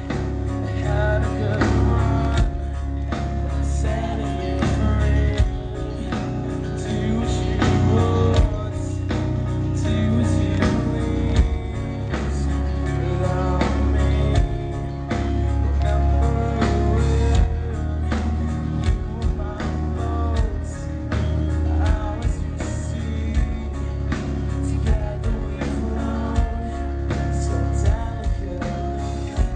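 A rock band playing live, with guitars over a steady drum beat and very heavy bass, in an instrumental passage before the vocals come in.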